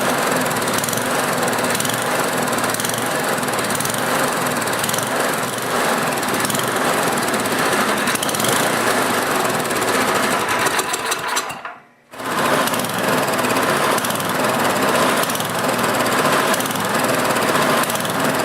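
Tecumseh four-stroke small engine running and surging up and down in speed, a sign of a carburetor problem such as a blocked air jet. The sound cuts out for a moment about twelve seconds in.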